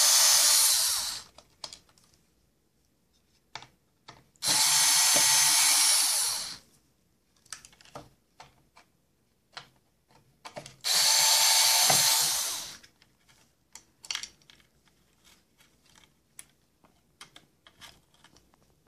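Ryobi power drill-driver backing out the screws that hold a circuit board: three runs of about two seconds each, several seconds apart, with light clicks of handling and loose screws between them.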